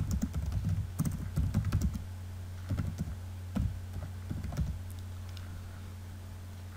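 Typing on a computer keyboard: quick runs of keystrokes for about the first two seconds, then a few shorter bursts, stopping for the last couple of seconds.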